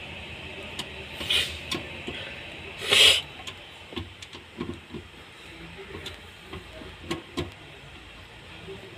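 Hand tool tightening the screws on a car's fuel pump assembly cover, making scattered metal clicks and taps. Two short, loud rasps come about one and a half and three seconds in.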